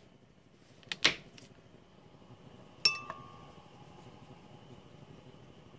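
Glass blender jar clinking twice as butter is added to it: a knock about a second in, then a sharp clink just before three seconds that rings briefly.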